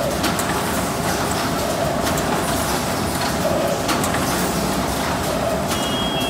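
HM-ZD350D automatic rigid box making machine running: a steady mechanical din with a hum and scattered sharp clicks from its moving parts, and a brief high beep-like tone near the end.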